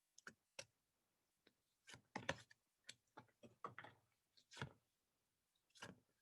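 Near silence broken by a dozen or so faint, irregular clicks and taps, the sound of a pack of phonics flashcards being handled and flipped through one card at a time.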